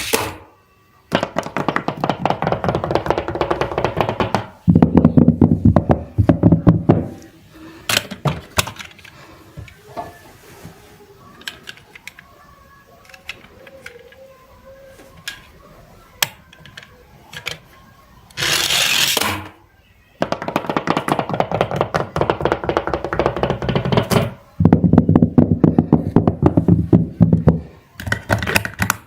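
A short musical sound clip, about six seconds long, played twice about nineteen seconds apart, each time just after a brief hiss. Between the two plays there are light scattered clicks and knocks.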